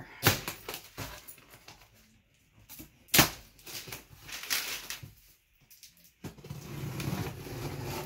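A knife slitting the packing tape on a cardboard box, with scraping and rustling of cardboard and plastic wrap. A sharp knock on the box about three seconds in is the loudest sound.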